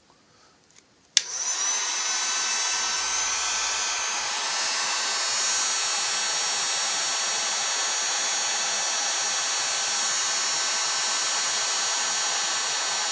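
Heat gun switched on with a click about a second in, its fan spinning up and then blowing steadily with a high whine, used to heat the chainsaw crankcase half so the crankshaft can be fitted.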